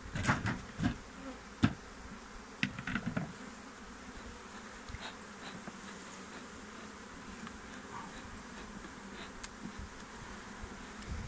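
A swarm of honeybees buzzing steadily around an open hive, with several sharp knocks in the first three seconds or so as a wooden frame and hive parts are handled.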